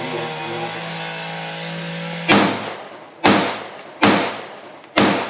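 Four pistol shots fired at a steady pace, a little under a second apart, each with an echoing tail, starting about two seconds in. Before them is a steady humming drone.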